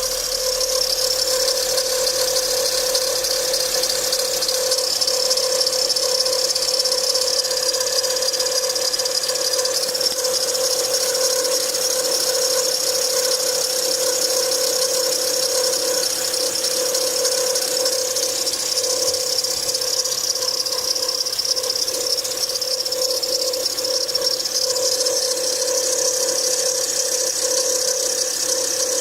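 2007 Acura TL Type S's 3.5-litre V6 running with a steady whine and rattle from the accessory-belt tensioner pulley, whose bearing is worn out.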